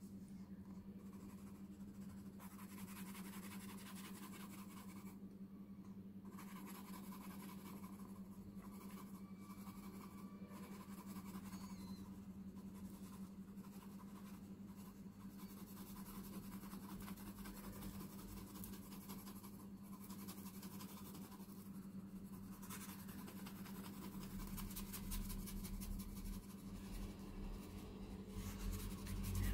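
Faint, steady scratching of an Apsara graphite pencil shading lightly on drawing paper, over a steady low hum.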